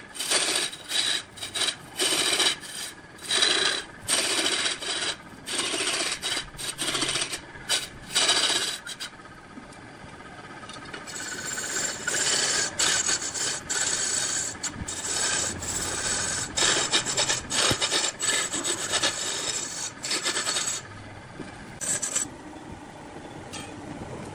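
Turning tool cutting a large log spinning on a wood lathe: a coarse rasping scrape as the blade shaves the wood and throws off chips. It comes in short broken bursts for the first several seconds, runs steadier through the middle, and breaks up again near the end.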